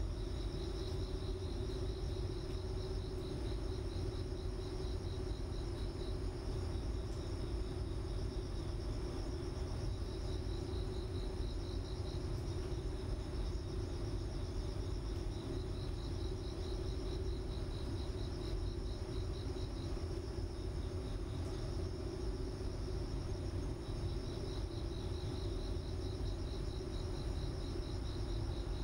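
A high, rapidly pulsed insect trill that comes and goes in several stretches of a few seconds each, over a steady low hum and background noise.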